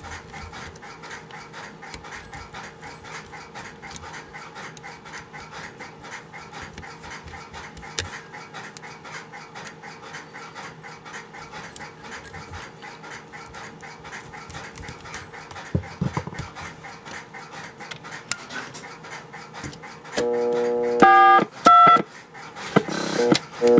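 Faint steady tone with light scratching while the red and green wires are swapped on a Western Electric Touchtone phone's terminal block. About 20 s in, a loud steady tone starts, then short Touch-Tone (DTMF) beeps as keypad buttons are pressed, showing the phone now sends digits on a corrected-polarity line.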